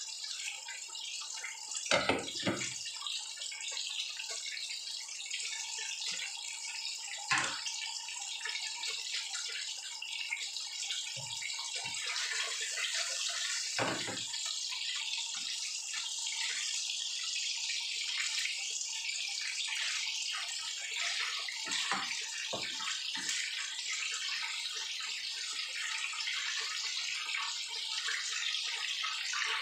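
Oil sizzling steadily in a frying pan as food fries, with a few sharp knocks of a spatula against the pan, the loudest about two seconds in.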